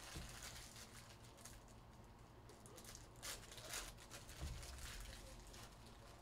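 Faint rustling and light taps of trading cards and a card pack wrapper being handled, with a few slightly louder crinkles about three to four seconds in.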